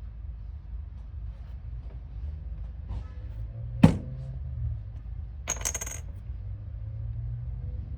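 A sharp knock of a small hard object a little under four seconds in, then a half-second metallic jingle about five and a half seconds in, over a low steady hum.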